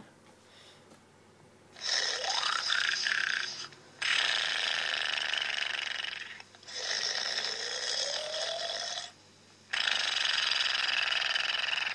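Snoring sound effect: four long snores of about two seconds each, separated by short gaps.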